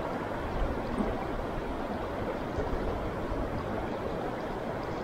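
A river running high after rain, its current flowing past close to the microphone: a steady rushing with a low rumble underneath.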